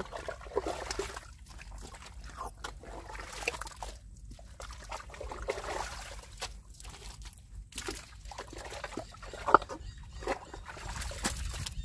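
Wet mud squelching and sucking as an arm works deep into a mantis shrimp burrow, with irregular sloshes of watery mud and one sharper slap about nine and a half seconds in.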